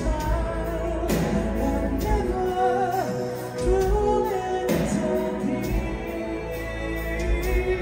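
Power metal band playing live: a singer over keyboards, electric guitars and a driving kick drum, with cymbal crashes about a second in and again near five seconds.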